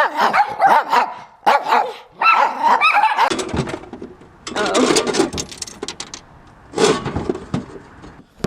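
A dog barking repeatedly in short barks, then a rattling, scraping noise for a couple of seconds, and one more bark near the end.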